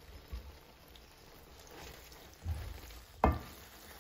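A wooden spoon stirring spaghetti in tomato sauce in a stainless steel pan. There are soft low thumps, then one sharp knock of the spoon against the pan about three seconds in.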